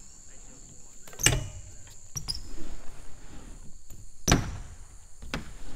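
BMX bike on a ramp: two hard knocks of the wheels landing on or striking the ramp, about three seconds apart, with lighter knocks between, over a steady high drone of insects.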